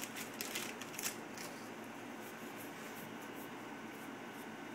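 Yu-Gi-Oh! trading cards being slid through the hands, with a few soft clicks and rustles in the first second or so, then only a faint steady hiss.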